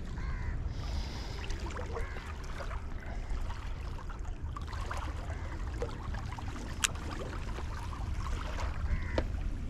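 Wind rumbling on the microphone over water lapping against shore rocks, with scattered faint clicks and one sharp click about seven seconds in.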